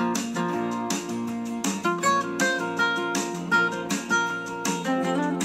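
Background guitar music: a continuous run of plucked notes.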